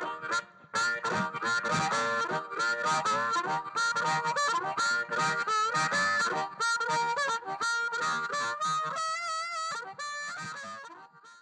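Outro music led by a harmonica playing a melody with sliding notes and a wavering held note about nine seconds in, fading out at the close.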